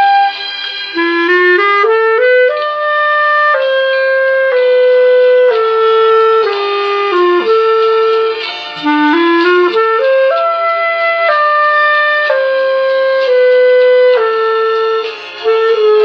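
Clarinet playing a slow melody: held notes of about a second each, with short rising runs about a second in and again near the middle.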